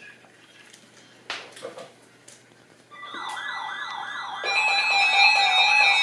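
Weather alert radios sounding their alarm for an incoming Special Marine Warning. A warbling siren tone, about four sweeps a second, starts about three seconds in, and louder steady alarm tones join about a second and a half later. A few light knocks come just before.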